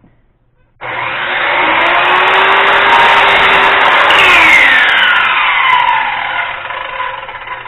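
Radial arm saw switched on about a second in and cutting a mitered wooden frame piece: a loud, steady running noise with a whine that falls in pitch through the middle. It then runs on more quietly.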